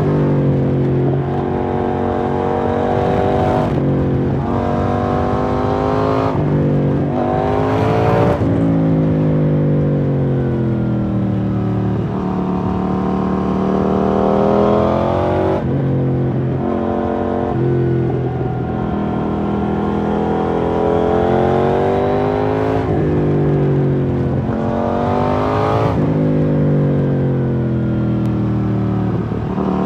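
KTM 790 Duke's parallel-twin engine through an IXRACE MK2 aftermarket exhaust while riding, accelerating hard through the gears several times, the pitch climbing and dropping back at each quick upshift, between stretches of rolling off with the pitch falling.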